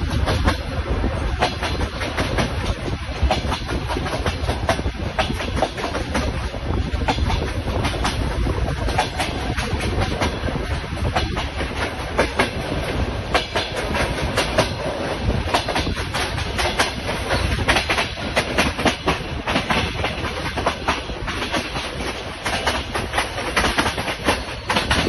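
A train running past, its wheels clicking in quick succession over the rail joints above a steady low rumble.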